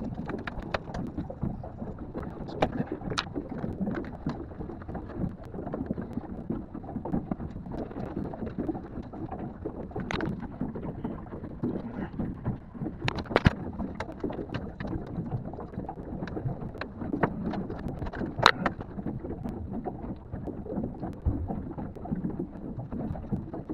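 Rubbing and rustling from hands working a rag around wiring terminals, with a few sharp clicks, over a steady low rumble.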